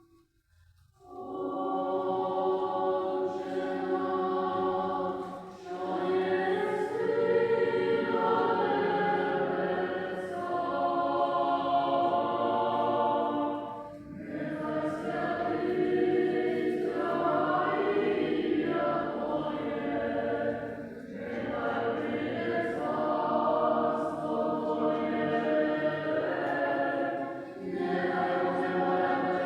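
Ukrainian church choir singing a slow liturgical chant in long sustained phrases. It starts about a second in, with brief breaks between phrases.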